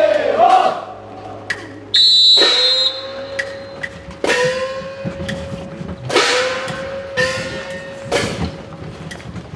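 Festival float music: a shrill whistle blast about two seconds in, then a struck gong about every one to two seconds, each hit ringing on with a pitch that rises slightly after the strike.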